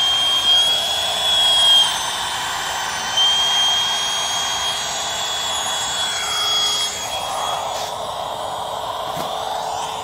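Flextail mini electric air pump running in deflate mode, sucking the air out of an inflatable sleeping pad: a steady fan whine with a high whistle that drops out briefly about two seconds in. The sound eases slightly about seven seconds in as the pad empties.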